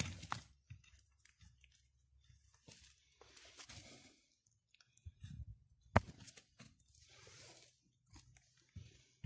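Loose soil and small stones crunching and scraping as a hand rakes through dirt, in short irregular bursts, with a sharp click about six seconds in.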